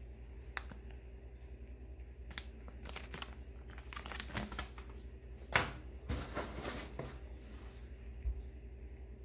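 Clear plastic zip bag with a charging cable inside being handled and crinkled: a run of crackles and rustles through the middle, with one sharper snap partway through.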